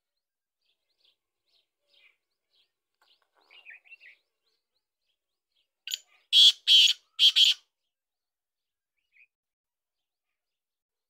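Black francolin calling: a short note and then three loud, harsh notes in quick rhythm, about six seconds in. Faint chirps come before it.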